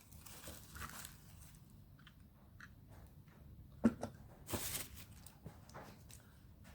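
Plastic packaging and a model train being handled: scattered light clicks and crinkles, a sharp tap about four seconds in, and a brief rustle just after.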